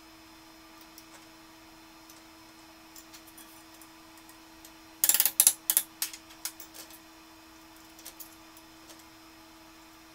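Sharp metallic clicks and clacks as a bent aluminum sheet bracket is handled and clamped in a steel bench vise, with a quick run of several loud clacks about five seconds in and a few lighter ones after. A steady faint hum underneath.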